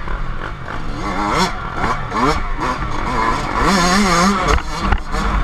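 Dirt bike's two-stroke engine (a Yamaha YZ125) revving up and down as the throttle is worked along a rough trail, with a rumble of wind and knocks from the bumps.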